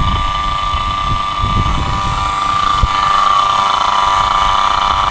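Refrigeration vacuum pump running steadily with a high-pitched whine while it pulls vacuum on the air conditioner's refrigerant lines after a compressor replacement. A single sharp click sounds about three seconds in.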